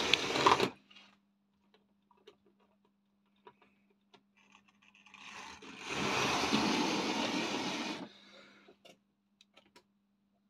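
Tri-ang model railway locomotive's electric motor whirring as it runs on the track. It stops just under a second in, a few light clicks follow, and it runs again for about two and a half seconds from about five and a half seconds in. A faint steady hum sounds in the quiet stretches.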